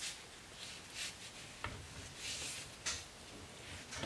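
Rubber-gloved hands rubbing wet coffee grounds onto a deer antler: soft, intermittent swishing and rubbing, with a couple of faint clicks.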